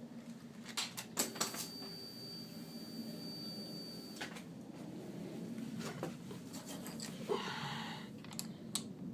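Yamaha FZ6 inline-four engine running with a fast, irregular ticking and clatter over a steady low hum, a few sharper knocks among it. The tick persists despite new valve shims and a manual cam chain tensioner; it was later traced to chattering gears between the crankshaft and the clutch basket.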